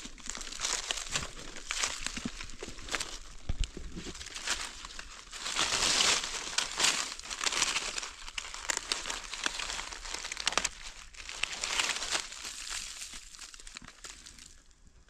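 Dry fallen leaves rustling and crackling as gloved hands push through the leaf litter and dig a mushroom out of the forest floor. The rustling is loudest about six seconds in and dies down near the end.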